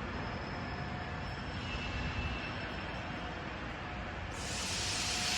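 Industrial washing and air-drying line running: a steady machine noise. About four seconds in, a loud airy hiss comes in.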